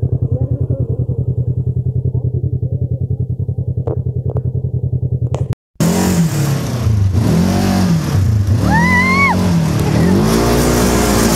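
Side-by-side UTV engine idling with a steady rapid pulse; after a sudden short break it revs up and down again and again as the machine is driven, its pitch rising and falling, with a higher whine following one of the revs.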